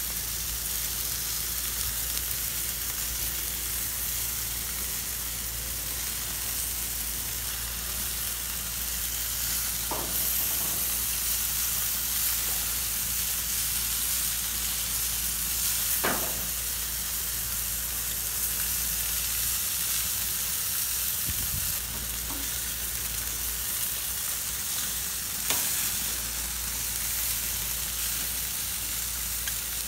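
Longganisa pork sausages sizzling on hot grill grates, a steady high hiss. A few short sharp clicks come from metal tongs touching the grate as the sausages are turned.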